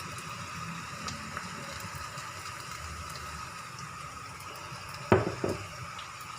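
Kuay teow noodles sizzling as they fry in hot oil, a steady hiss, with one short loud clatter about five seconds in.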